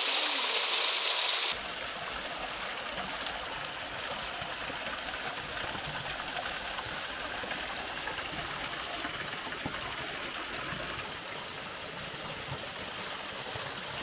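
Thin waterfall streaming and splashing down a steep rock face: a steady hiss of falling water. For the first second and a half it is louder and higher, then it drops suddenly to a softer, even rush.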